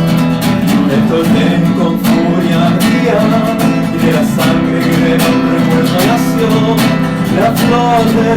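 Acoustic guitar strummed in a steady rhythm, accompanying a song in an instrumental stretch between sung lines.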